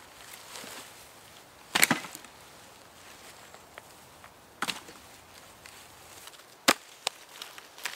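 A shovel chopping into leaf-littered woodland ground: three sharp strikes, roughly two to three seconds apart, with a smaller knock just after the last.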